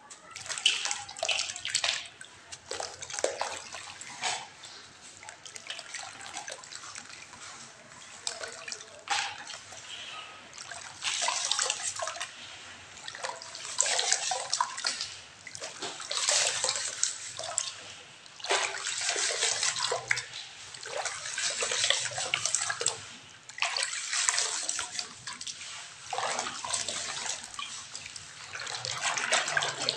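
Cowrie shells and small clay toys being sloshed and stirred in water, in uneven splashing bursts a second or two long that follow one another throughout.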